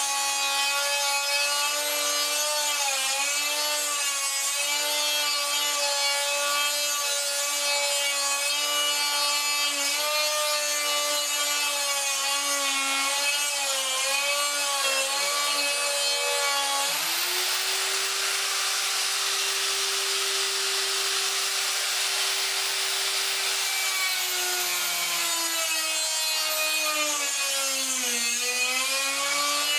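Bosch electric die grinder with a pink grinding stone grinding out a hole in hardened steel: a steady motor whine over a grinding hiss, the pitch wavering and dipping as the stone bears on the steel. About 17 seconds in the whine jumps up in pitch, holds, and slides back down about 24 seconds in.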